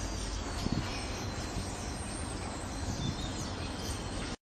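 Outdoor trackside background noise: a steady low rumble with faint bird chirps high above it, cutting off abruptly near the end.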